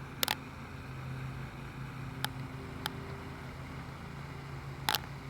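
A steady low motor hum that swells a little, with four short sharp clicks spread through it.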